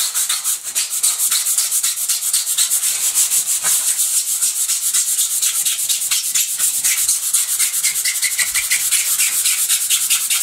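Hand sanding of dried filler on a wall with folded 240-grade aluminium oxide abrasive paper, rubbing the repaired hairline crack smooth ready for painting. The strokes are rapid, even and scratchy, several a second, and keep up a steady pace.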